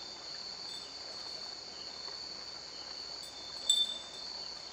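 Crickets trilling in a steady high-pitched drone, with one brief sharp click about three-quarters of the way through.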